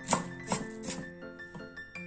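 A knife chopping on a cutting board, three strikes about 0.4 s apart in the first second, then stopping, over light background music of plucked, bell-like notes.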